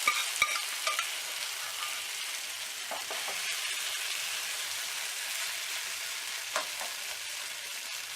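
Boneless mutton sizzling as it fries in hot oil in a pan, stirred with a utensil that taps the pan a few times in the first second and now and then after.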